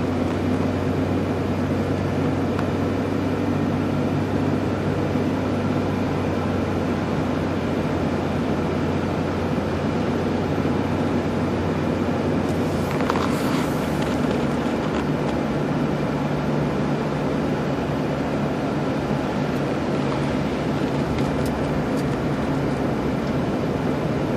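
Steady engine hum and tyre noise of a car driving on a highway, heard from inside the cabin. The low hum shifts slightly higher about halfway through, and there is a brief hiss just before that.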